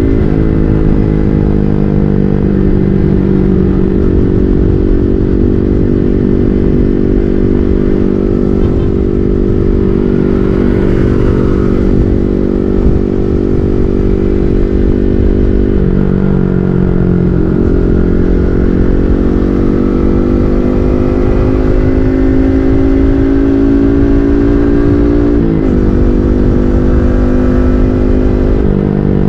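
Yamaha MT-15's single-cylinder engine through an SC Project full-system aftermarket exhaust, ridden at steady speed. The engine note drops about halfway through, climbs slowly for several seconds, then jumps with quick gear changes near the end, over a constant low wind rumble.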